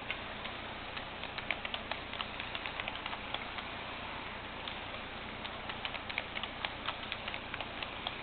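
Roco HO-scale model freight train rolling past, its wagon wheels giving light, irregular clicks on the track above a steady hiss.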